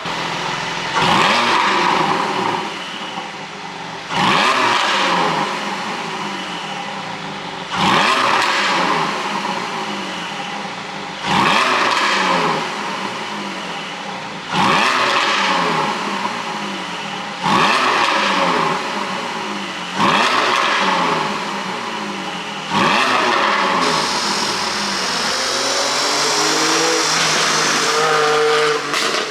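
Porsche 718 Boxster GTS 4.0's flat-six, carrying an ECU tune for exhaust pops, blipped hard about eight times, each rev snapping up and falling back. Near the end the revs are held and climb slowly instead.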